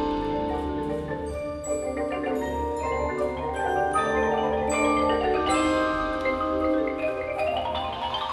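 Indoor percussion ensemble playing, marimbas and other mallet keyboards carrying layered chords and running notes, with a quick rising run of notes near the end.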